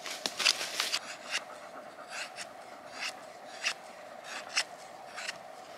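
Knife blade shaving thin curls off a wooden stick while carving a feather stick. A quick run of short scraping strokes comes in the first second, then single strokes follow every half second to a second.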